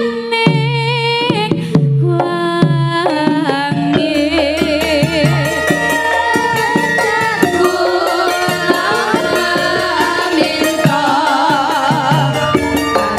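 Javanese gamelan music with female sinden singing: drum strokes and struck metal notes at the start, then several women's voices singing with vibrato from about four seconds in, over the ensemble.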